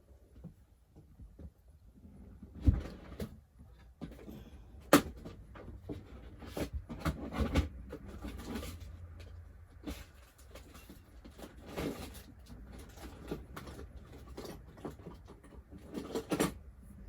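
Scattered knocks, clunks and clicks of someone rummaging through a toolbox for a bigger pair of pliers, with the loudest knocks about three and five seconds in.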